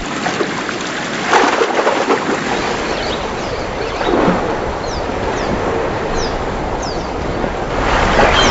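Water splashing and churning as a crocodile seizes its prey, swelling about a second in, around four seconds in and again near the end. A few short high chirps sound through the middle.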